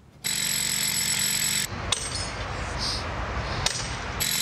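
Pneumatic rock drill hammering into a sandstone block in a fast, steady chatter with a ringing metallic edge. It drops away for about two seconds in the middle, where two sharp knocks are heard, then picks up again near the end.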